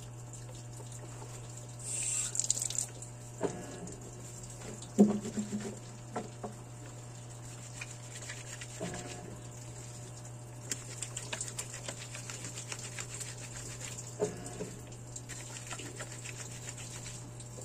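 Hand-washing a stained cloth diaper at a laundry sink: the bar of laundry soap rubbed into the wet cloth, with water trickling and dripping from the tap and wet fabric being handled. A few sharp knocks against the sink, the loudest about five seconds in, and a stretch of quick scratchy rubbing in the second half.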